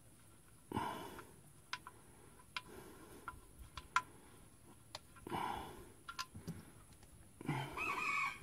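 Old engine oil dripping from the drain holes into an oil catch pan: irregular single ticks and plops. There are also a few short soft rustling or breathing sounds, one about a second in, one about five seconds in and one near the end.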